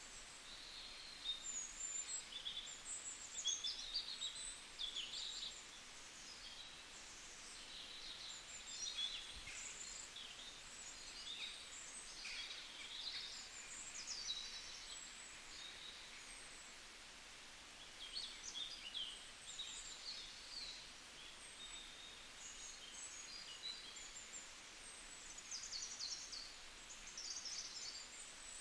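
Small birds chirping and calling, many short high chirps coming in clusters, over a steady outdoor hiss.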